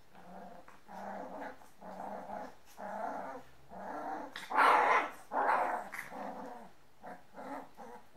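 A dog growling in a run of short growls, about one a second, the loudest just before the middle and a few shorter ones near the end.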